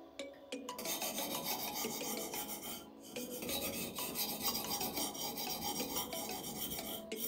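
Knife blade being ground by hand on a coarse #320-grit whetstone: steady gritty scraping of steel on stone, starting about a second in, with a brief break near three seconds.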